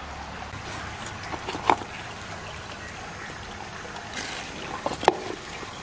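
Shallow river water trickling steadily, with a few short sharp wet clicks from hands handling a large opened freshwater mussel, the loudest about five seconds in.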